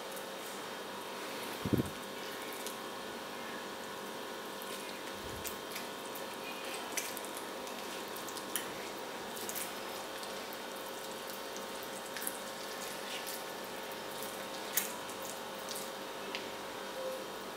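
Marinated coot halves being threaded by hand onto long flat metal skewers: scattered light clicks and taps of the skewers and meat against the cutting board, with one louder knock about two seconds in, over a steady hum.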